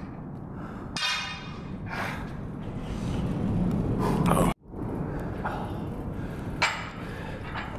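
Barbells being handled on a gym floor: a loaded bar set down with a ringing metallic clank of its plates, and a few seconds later another sudden knock of plates as a bar is lifted. The sound breaks off abruptly about halfway through.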